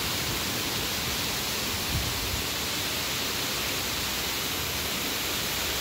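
Heavy rain pouring down steadily on leaves and water: a dense, even hiss of downpour.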